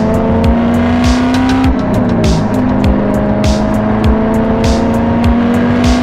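C5 Corvette's LS1 V8 and road noise heard from inside the cabin at highway speed. The engine note climbs slowly, dips briefly about two seconds in, then holds steady. Background music with a steady beat plays over it.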